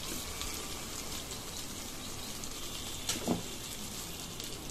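Oil and spice paste sizzling steadily in a stainless steel kadai as chunks of half-boiled potato are dropped in, with one short knock about three seconds in.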